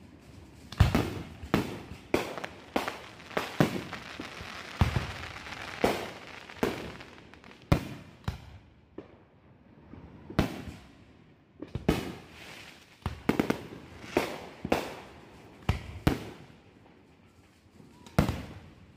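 Aerial firework shells bursting overhead in quick, irregular succession: a run of sharp, loud bangs, with a hissing crackle beneath them a few seconds in.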